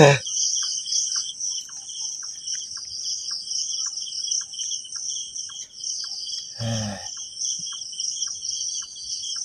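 Crickets trilling steadily in the night, with faint regular ticks under the trill. A short low sound breaks in about seven seconds in.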